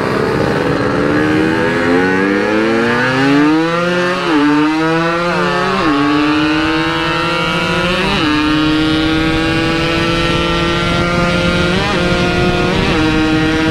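Yamaha RX-King 135cc single-cylinder two-stroke engine through a CRC-series aftermarket exhaust, accelerating through the gears: the pitch rises and drops sharply at three gear changes, about four, six and eight seconds in, then the bike cruises at a steady pitch with two brief blips of the throttle near the end.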